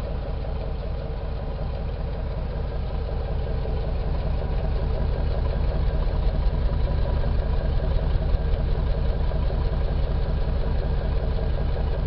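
Car engine idling, heard as a steady exhaust rumble right at the tailpipe; it grows a little louder about halfway through. The engine has a leaking head gasket, which the owner says is sending coolant water out the tailpipe.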